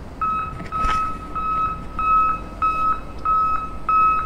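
Electronic beeping at one steady pitch, about seven short, evenly spaced beeps, like a vehicle reversing alarm, over a low rumble.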